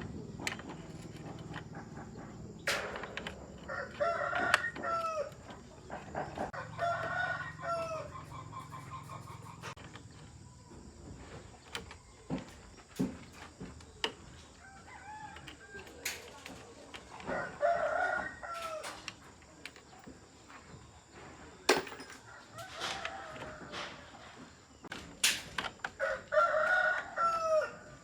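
A rooster crowing repeatedly, about five crows of a second or two each, mixed with scattered sharp knocks.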